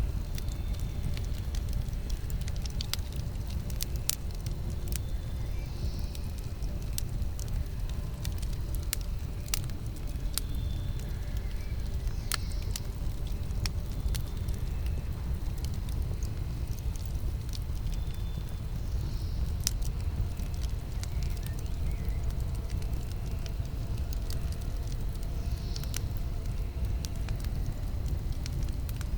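Campfire burning: a steady low rumble of the flames with scattered sharp crackles and pops from the wood.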